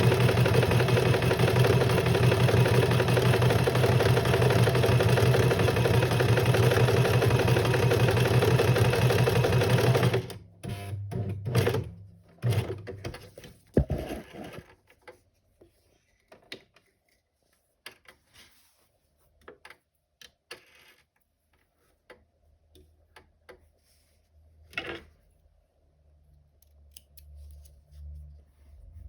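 Electric sewing machine running steadily as it stitches, stopping abruptly about a third of the way in. Scattered light clicks and rustles of handling follow.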